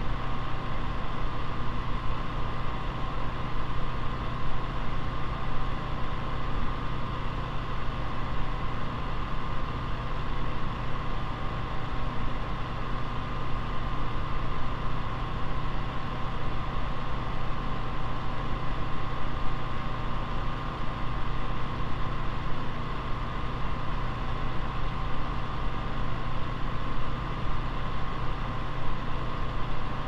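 Small Vortex electric fan running steadily: an even rush of moving air with a steady hum and a constant whine from the motor and blades.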